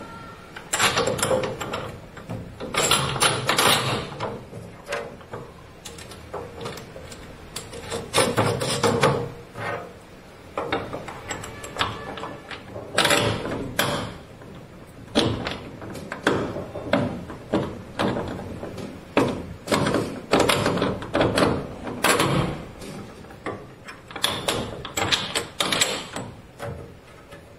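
Hands twisting and working the metal ceiling-mount drop rods of a rain shower head to line up their bolt holes: irregular rubbing, clicks and knocks, in clusters of about a second.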